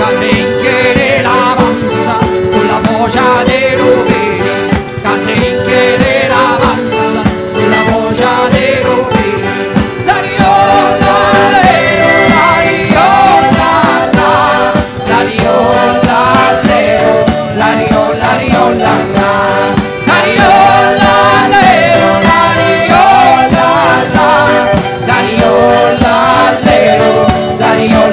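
Live Salento folk band playing a fast pizzica-style tune: dense, steady jingling percussion under a flute and accordion melody, with singing voices in places.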